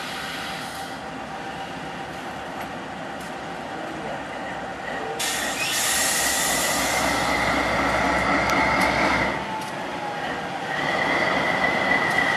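GE AC44i diesel-electric locomotive approaching slowly at the head of a short passenger train, its engine running and wheels rolling on the rails, growing louder about five seconds in. A steady high-pitched wheel squeal sets in about six seconds in, breaks off for a moment past nine seconds and returns near the end.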